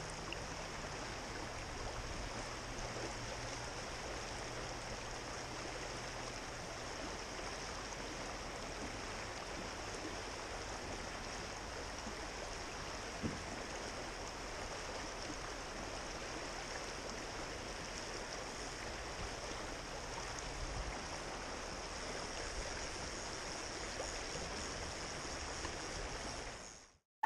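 Fast-flowing river current rushing steadily, with a single small knock about thirteen seconds in. The sound fades out near the end.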